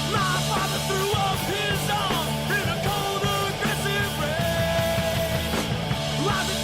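Punk rock song: the full band comes in at the start, drums under a dense wall of instruments, with sung vocals from about a second in.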